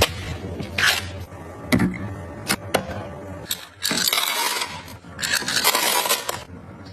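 Objects being handled: a few sharp clicks and knocks, then two longer stretches of scraping about four and five seconds in.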